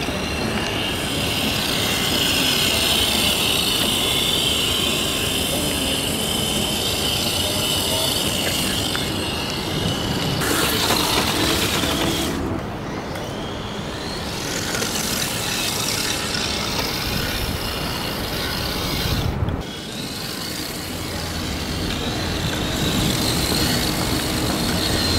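Electric motor of a 1:10 scale HSP Flying Fish RC drift car, giving a high whine as it speeds up and slides, with its hard drift tyres running over paving stones. The sound changes abruptly three times.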